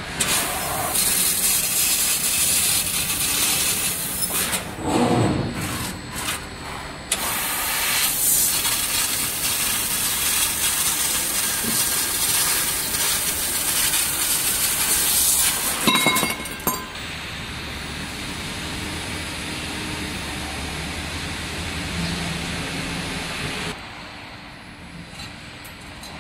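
Fiber laser tube-cutting machine cutting metal tube: a loud steady hiss of the cutting head and its gas jet, broken by short pauses and a few sharp clicks. Partway through the hiss gives way to a quieter, lower machine noise, which drops again near the end.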